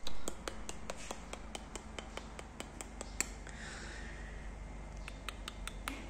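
A quick run of sharp clicks, about five a second, then a pause of a second and a half and another short run near the end, over a steady low hum.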